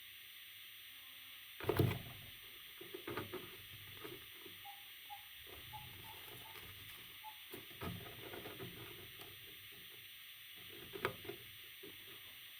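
Parrot chicks shuffling and scratching in their bedding, making scattered rustles and knocks, with a few faint short peeps in the middle, over a steady background hiss.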